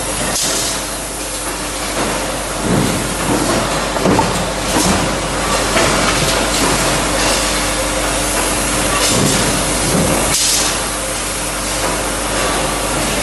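Stamping line of mechanical punch presses worked by robot arms: a steady machine din with several press-stroke thuds and short hissing bursts of compressed air.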